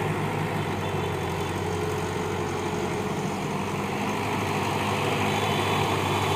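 Caterpillar hydraulic excavator's diesel engine running with a steady drone while the machine swings and reaches its boom out, getting a little louder in the second half.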